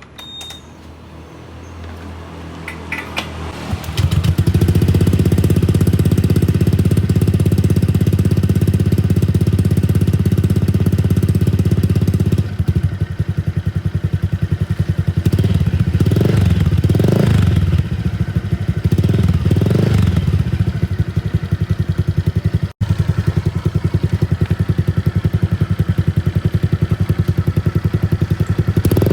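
Honda Vario scooter's engine running through an aftermarket 'luster'-style exhaust. It is quieter for the first few seconds, then runs loud and steady from about four seconds in, with several quick throttle blips around the middle.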